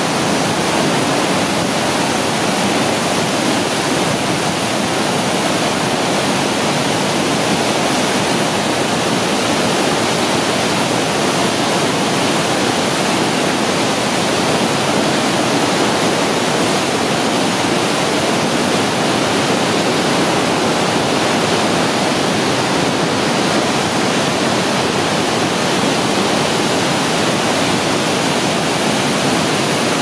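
Flooded river in spate: a steady, loud roar of whitewater rapids churning over rocks.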